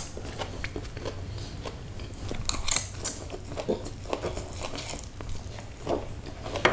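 A person eating fried egg noodles (bakmi): slurping noodle strands and chewing with the mouth, in short irregular smacks and slurps.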